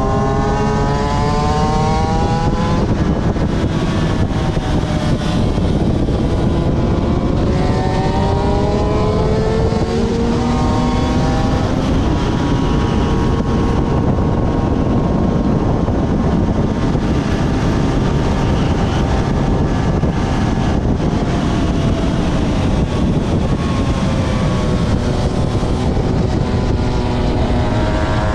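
Aprilia RS250's two-stroke V-twin engine at racing revs. It climbs in pitch and drops back at each gear change, holds high for a long stretch in the middle, falls as the bike slows, and climbs again near the end. A steady rushing wind noise lies underneath.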